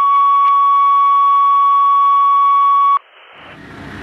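Fire dispatch radio tone-out: the long, steady second tone of a two-tone page, held about three seconds and cutting off suddenly. A short burst of radio hiss follows, then street traffic noise fades in near the end.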